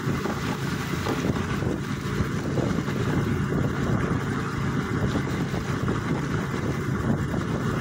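Vehicle engine running steadily on the move, with wind rushing over the microphone and a steady hiss from tyres on the wet road.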